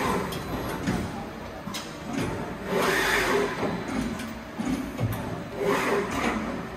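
Takisawa TT-1100GC CNC lathe running, with uneven surges of mechanical noise every second or two over a steady low hum.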